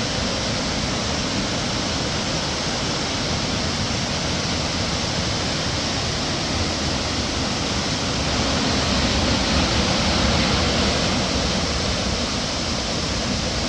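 Steady rush of a large waterfall, Burney Falls, plunging about 129 feet: a continuous, even roar of falling water.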